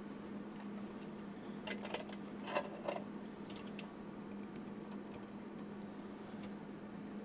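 A few light clicks and taps from small parts and tools being handled while wires are reattached to a solar light's LED board, over a steady low hum. The clicks bunch together about two to three seconds in.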